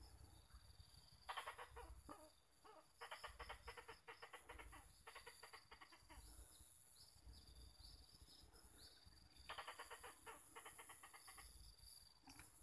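Faint runs of rapid clucking, chattering animal calls, four bursts of a second or two each, over a steady high-pitched drone.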